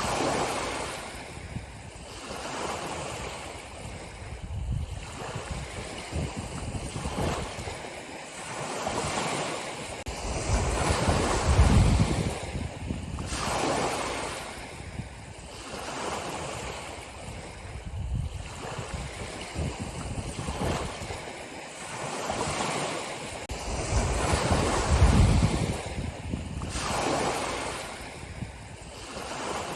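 Ocean waves breaking and washing onto a shore in slow, uneven surges every few seconds, rising and falling in loudness, with wind noise underneath.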